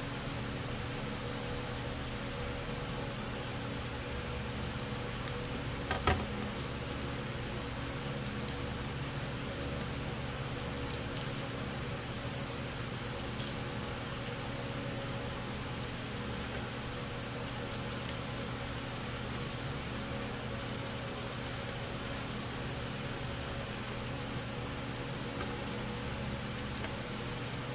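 A steady machine hum, like a fan or air conditioner running, with one sharp knock about six seconds in.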